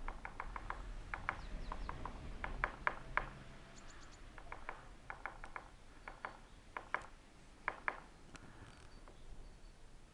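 Woodpecker pecking at a pole, chiselling it out: sharp knocks come in irregular clusters of two to four with short pauses between. A few faint high chirps sound in between.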